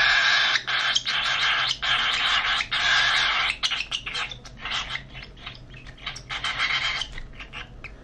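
Baby cockatiel chick giving raspy, hissing begging calls as it is syringe-fed hand-feeding formula. The calls come as a run of short pulses, quickening about halfway through and then growing quieter.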